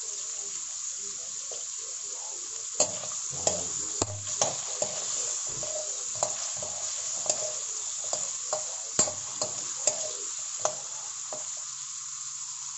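Carrot cubes sizzling steadily in hot oil in a wok. From about three seconds in, a metal spoon knocks and scrapes against the pan in a run of sharp clicks as the carrots are stirred.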